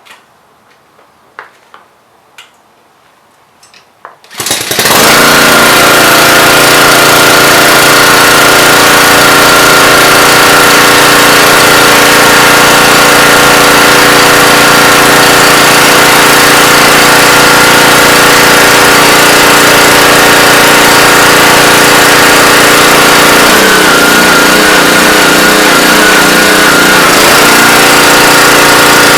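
A few light knocks, then a gas pressure washer starts about four seconds in and runs loud and steady with a constant high whine. The lower tones waver briefly near the end. It is being test-run after a no-pressure fault was repaired by fixing its unloader valve.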